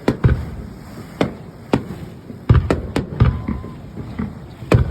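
Fireworks bursting: about ten sharp bangs at irregular intervals, each with a short low rumble after it, the loudest about halfway through.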